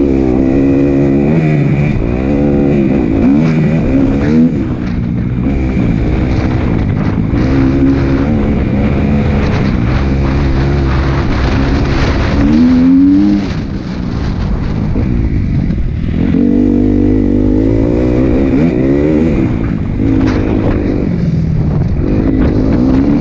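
Motocross bike engine heard from on board, revving up and dropping back again and again as the rider accelerates, shifts and backs off around a dirt track. In the middle the revs climb sharply, then the level dips briefly.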